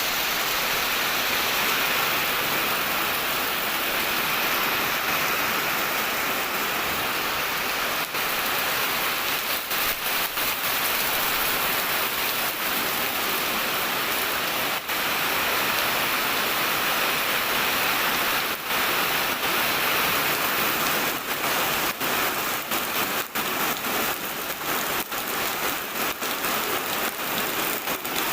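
Steady heavy rain falling, with sharp individual drop impacts ticking over the hiss, more frequent in the second half.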